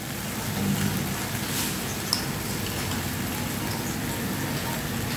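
Spiced masala sizzling steadily in oil in an aluminium kadai over a low-to-medium flame, with a low steady hum underneath and a single light click about two seconds in.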